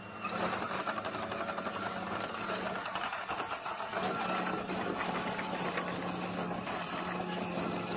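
Heavy-equipment engine running steadily, with a constant low hum under dense mechanical clattering.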